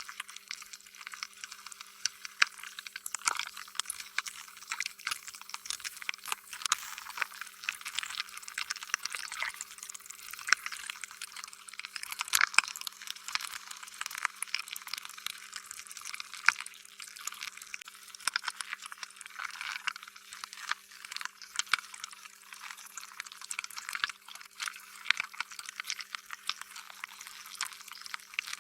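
Slime being squished and worked: a continuous stream of small sticky clicks and pops, with a louder cluster about halfway through.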